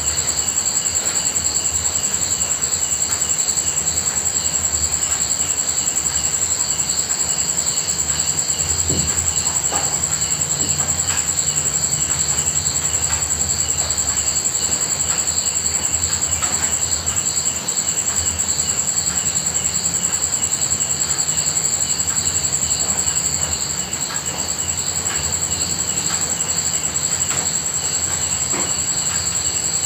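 Steady rain with a continuous high-pitched chorus of night insects over it, pulsing evenly, and a low rumble underneath.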